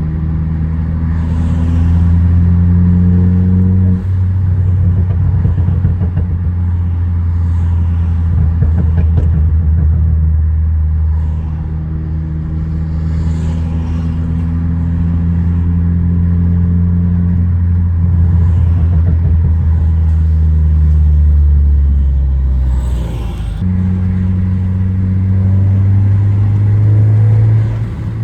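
2014 Ford Focus ST's turbocharged 2.0-litre four-cylinder, running a Stratified tune, heard from inside the car while driving. The engine pulls up in pitch and drops sharply at a gear change about four seconds in, then rises and falls slowly as the car cruises. Its pitch changes suddenly again about five seconds before the end and climbs once more.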